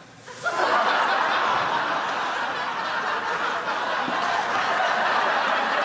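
Studio audience breaking into laughter about half a second in and laughing steadily on.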